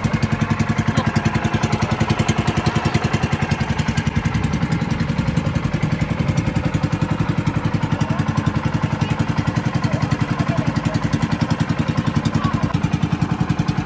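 A small fishing boat's engine running steadily, with an even, fast pulsing beat.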